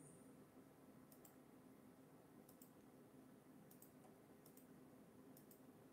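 Faint double clicks of a computer mouse, five in all about a second apart, over a faint steady hum.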